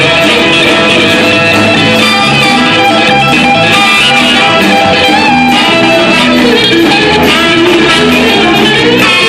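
A live blues band playing: Stratocaster-style electric guitar over bass and drums, with harmonica and trumpet playing along.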